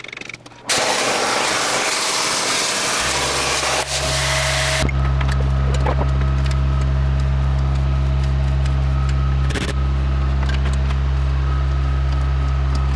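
A CNC plasma torch cutting steel plate, a loud hiss that stops about five seconds in. Under it and then alone, the electric motor of a powered slip roll runs with a steady low hum and light ticks as the rollers bend a flat steel bar into a curve.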